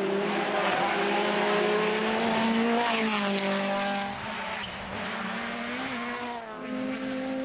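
Rally car engine running hard through a stage, its pitch climbing and then dropping sharply at gear changes about three seconds in and again near the end, over tyre and gravel noise.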